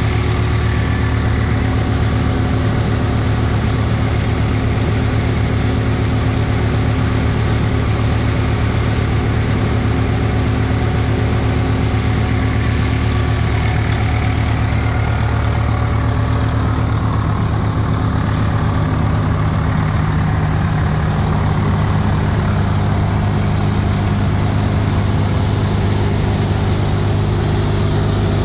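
A tractor-driven thresher running steadily under load, its tractor engine and threshing drum and fan making a continuous drone as it threshes crop and blows out chaff. A slight shift in the machine's tone comes about halfway through.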